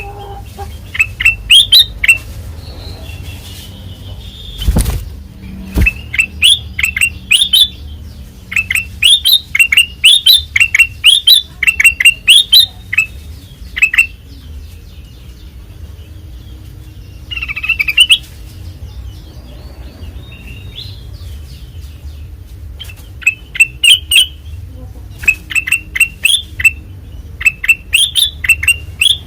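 Black-capped bulbul (kutilang emas) of the white-eyed form singing loudly, in repeated phrases of quick, sharp falling notes with short pauses between them. There is a single thump about five seconds in.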